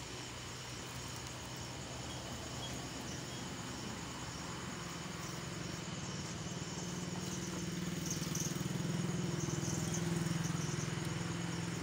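An engine running steadily with a low hum. The hum grows louder from about halfway through and stays up near the end.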